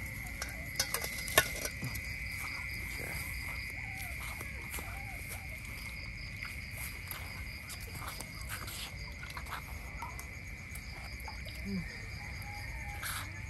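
Steady insect chorus in a mangrove forest: a continuous high buzz with a faster even pulsing above it. Scattered sharp clicks and a few short squeaks sound over it, the loudest click about a second and a half in.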